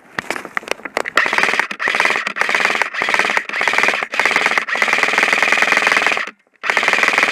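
Airsoft electric rifle (AEG) firing on full auto in repeated bursts, its gearbox cycling rapidly. A few single clicks come first, then about seven bursts follow one after another. The longest lasts about a second and a half, and a short pause falls a little after six seconds.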